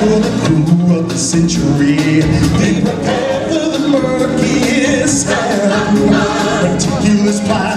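Live stage-show music: voices singing a song over backing music, without a break.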